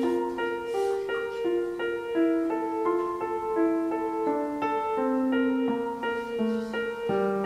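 Background instrumental music: a slow, gentle melody of ringing notes that change about every half second.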